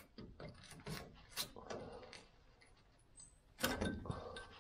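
Small hand chisel picking and scraping at a rusty steel seam on a VW T2 van body: a few light metal clicks about a second in, then a longer scrape near the end.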